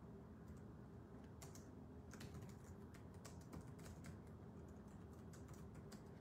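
Faint typing on a computer keyboard: a quick run of light key clicks starting about a second and a half in, over a low steady hum.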